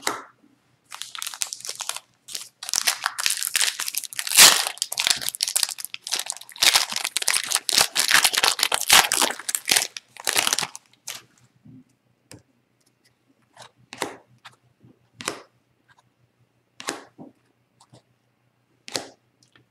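Foil wrapper of an Upper Deck Series One hockey card pack being torn open and crinkled for about ten seconds, followed by scattered soft clicks as the cards are shuffled by hand.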